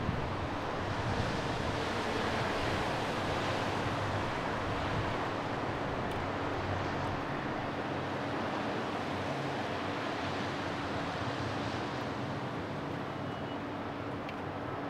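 Steady outdoor rushing noise of wind and distant town traffic, with a faint low hum, easing slightly toward the end.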